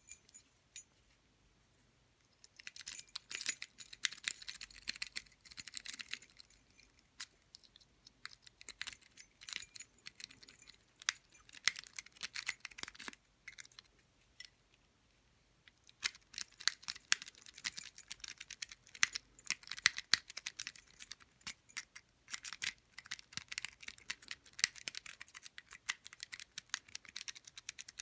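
Lock-pick rake (a Warlock rake) being scrubbed rapidly in and out of a padlock keyway: fast metallic clicking and scratching of the rake over the pins, in two long spells with a pause of about three seconds in the middle. The lock does not open.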